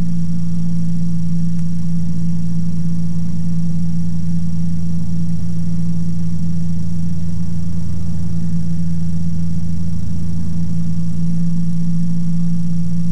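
Ikarus C42 microlight's engine and propeller running steadily in cruise, heard from inside the cockpit: one deep, even-pitched hum that does not change.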